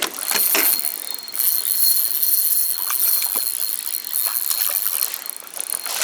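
Water splashing irregularly as a hooked trout thrashes at the surface while it is played in on a spinning rod.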